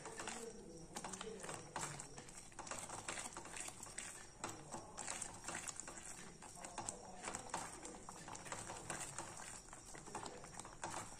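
Silicone spatula stirring a thickening semolina and apple mixture in a nonstick pan: faint, irregular soft knocks, scrapes and plops as the spatula works through the bubbling mass.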